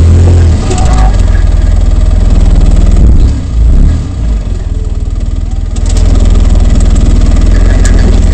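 Polaris RZR side-by-side's engine running at low speed as it crawls over rock, a loud steady low rumble heard from inside the open cab, dipping briefly about three to four seconds in, with a few sharp knocks.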